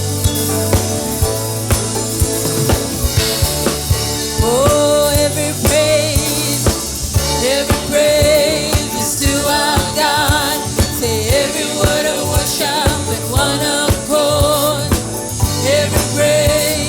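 Gospel worship music: a band with drum kit and keyboard chords playing, with a singer's voice coming in about four seconds in.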